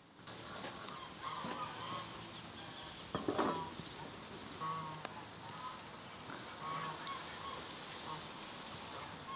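Geese honking in a run of short calls, several seconds apart, the loudest about three seconds in, over a steady background hiss.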